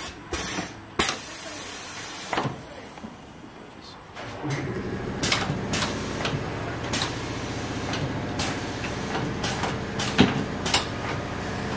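Hunter Auto34S tire changer mounting a low-profile tire on a large alloy wheel. First a few knocks and clicks, then about four seconds in the machine's motor starts and runs steadily, with sharp clicks now and then over it.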